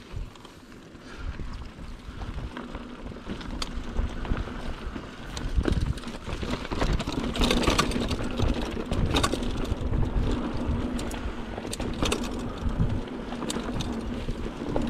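Mountain bike ridden over rough ground: wind rumbling on the microphone, with scattered rattles and knocks from the bike.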